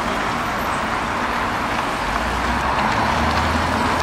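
Steady city traffic noise, with a bus's low engine hum coming in about halfway through as it passes close by.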